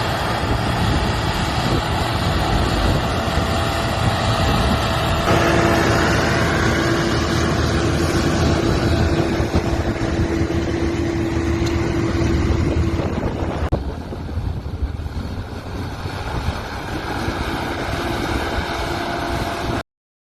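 Fiatagri 180-90 tractor's diesel engine running steadily under load, pulling a five-furrow plough. About five seconds in its note changes and a steady whine comes in, and about fourteen seconds in the sound drops somewhat quieter.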